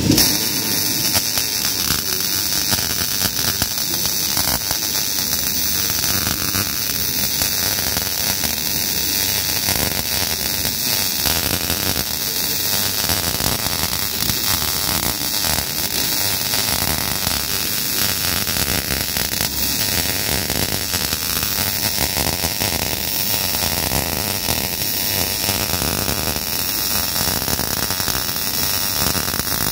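MIG welding arc burning steadily as a bead is laid, a continuous dense crackle and hiss.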